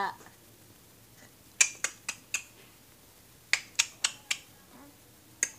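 Sharp clicks in quick runs of four, about four a second: one run a little after the start, another around the middle, and a third beginning at the very end.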